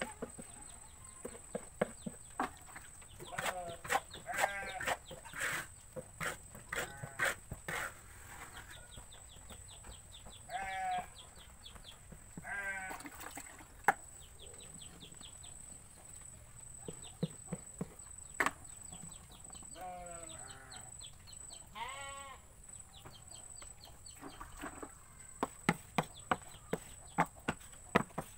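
Goats bleating again and again, each call a short quavering cry, with sharp clicks and knocks in between and a quick run of them near the end. A thin steady high tone runs underneath.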